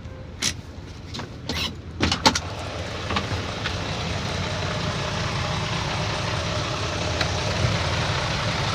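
A vehicle engine running steadily, a little louder after a few sharp knocks and clatters in the first two and a half seconds.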